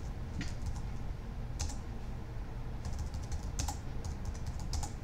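Typing on a computer keyboard: irregular key clicks in short runs with pauses between.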